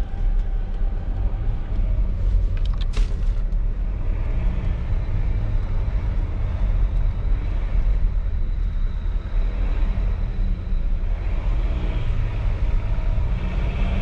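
Low, steady in-cabin rumble of a 2018 Volvo XC90 D5 on the move, its four-cylinder diesel engine and tyre noise heard from inside the car. A brief cluster of sharp clicks sounds about three seconds in.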